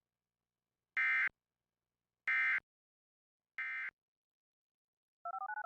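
Emergency Alert System end-of-message code: three short, loud, buzzy digital data bursts about a second apart, closing the alert. Near the end comes a quick run of touch-tone (DTMF) beeps.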